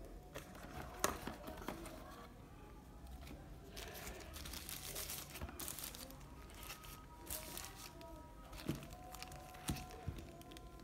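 Thin paper packing wrap crinkling and rustling as it is handled and crumpled by hand, with a few sharp clicks.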